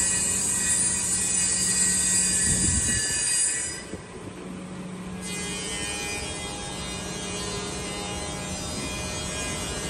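Taiwanese ECT-66A double-end cut-off and milling machine running, its saw and milling cutters giving a loud, high whine with several steady tones as they cut. About four seconds in the whine drops away, leaving the spinning cutters and motors running with a steadier, quieter hum.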